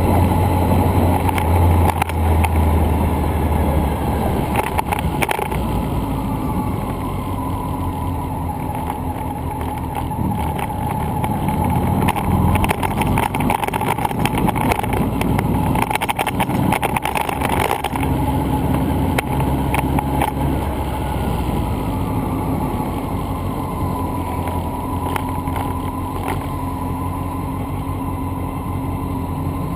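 Wind and road rumble picked up by a bicycle-mounted camera while riding a road bike along town streets: a steady rumble with a thin steady whine above it, and a run of clicks and knocks about halfway through.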